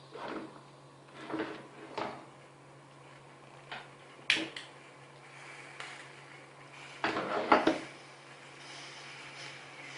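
Kitchen handling sounds: a series of separate knocks and clatters of pots and utensils, the loudest cluster about seven seconds in, over a faint steady hum.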